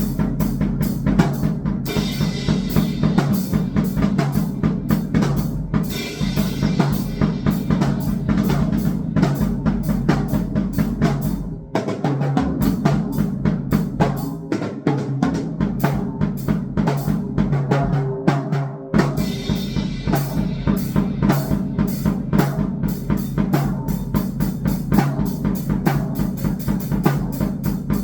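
Drumming on a drum kit in rapid, dense strokes of kick and snare, over a steady low electronic drone. The deep bass drops out for several seconds midway, and bright cymbal-like washes come and go.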